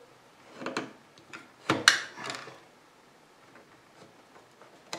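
Knife blade scraping and cutting into the plastic insulation of an electric cable, stripping it off to bare the copper wire: four or five short strokes in the first half, then only faint ticks of handling.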